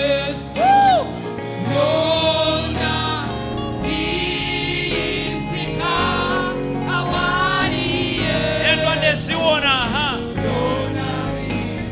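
Gospel worship song in Luganda, sung by a lead voice with a choir over steady instrumental backing.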